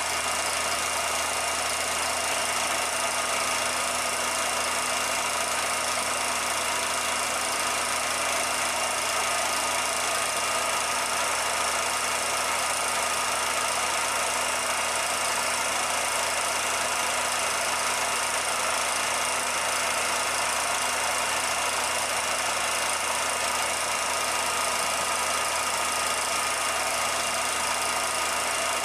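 Steady machine-like hum and hiss with a few constant tones, unchanging throughout. It is a noise bed under silent film, not sound from the pottery work shown.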